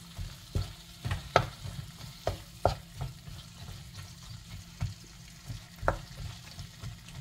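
Wooden spatula stir-frying sliced carrots, cabbage and sardines in a nonstick frying pan: irregular knocks and scrapes of the spatula against the pan over the food sizzling.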